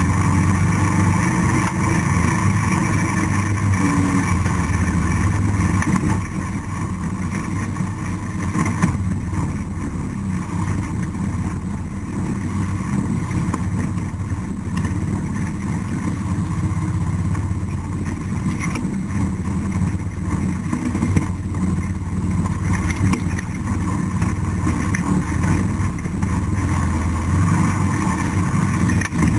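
ATV engine running steadily while riding, dropping slightly in level about six seconds in.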